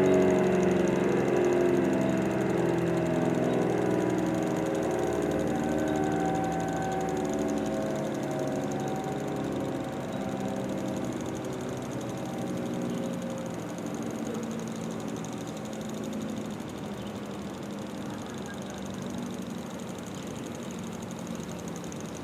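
ACA Allertor 125 outdoor warning siren winding down: its chord of tones slowly falls in pitch and fades over about twenty seconds.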